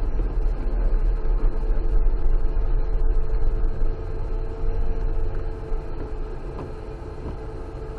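A car driving up a rough, wet dirt road, heard from inside the cabin: a heavy rumble of engine and tyres with a steady hum and scattered small ticks, easing somewhat after about five seconds.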